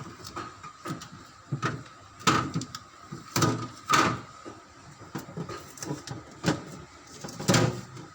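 Mini fridge being handled and its door opened and shut: a run of irregular knocks and thumps, the loudest about two, three and a half, four and seven and a half seconds in.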